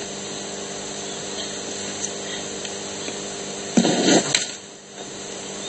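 A steady machine-like hum, as from a small motor, with one short louder sound about four seconds in.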